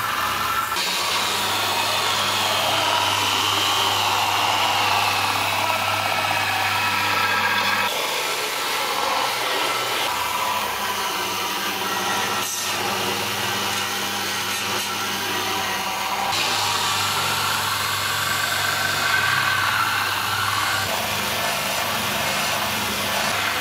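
Handheld electric polisher running steadily as it is worked along the edge of a stainless-steel channel letter, a motor hum with a wavering higher whine. The sound changes abruptly twice, at about 8 and 16 seconds in.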